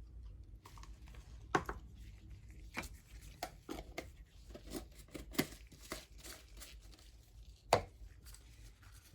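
A stir stick scraping and tapping against a small mixing cup as gold mica pigment is mixed into epoxy resin: irregular clicks and scrapes, the sharpest taps about one and a half, five and a half and seven and a half seconds in.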